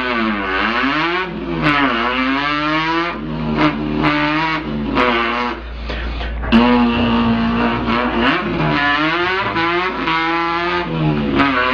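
A man imitating a revving engine with his mouth. The pitch climbs, falls back and climbs again several times, with a steadier held note in the middle.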